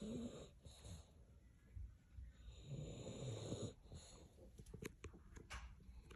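Dog snoring in its sleep: a short snore right at the start and a longer drawn-out one about two and a half seconds in, with a few faint clicks near the end.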